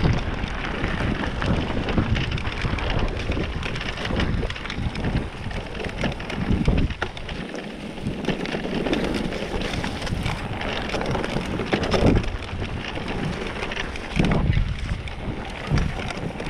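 Mountain bike rolling fast down a dry dirt singletrack: wind buffeting the microphone, tyres crunching over the trail and the bike rattling over bumps.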